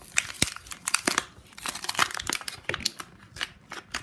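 Clear plastic toy packaging crinkling and crackling in quick, irregular bursts as it is pulled and torn open by hand.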